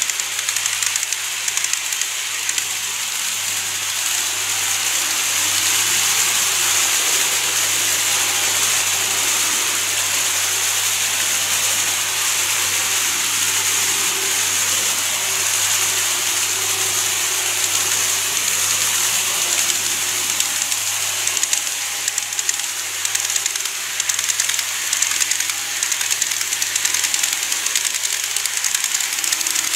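N-gauge model electric trains running on layout track: a steady hiss of wheels rolling over the rails with a low motor hum underneath.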